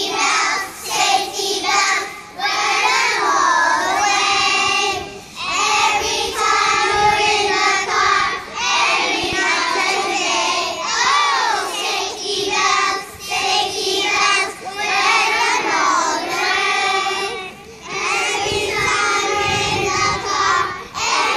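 Young children singing together in a string of short phrases.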